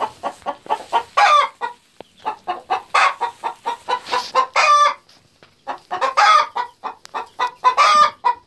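Hen cackling: runs of quick clucks, each run ending in a longer, louder squawk, five times over at intervals of about a second and a half to two seconds.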